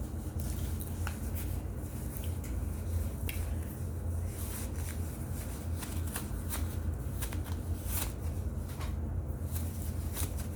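Crunchy, irregular crackling and snapping of baked cornstarch chunks being handled and broken, over a steady low hum.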